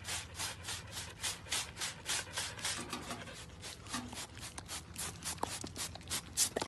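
Handheld trigger spray bottle squirting water in rapid pumps, a short hiss about four times a second.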